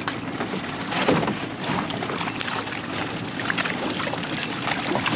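Water splashing and dripping as a fishing net is hauled aboard a small boat and fish are shaken out of it. Scattered knocks and slaps sound over a steady low motor hum.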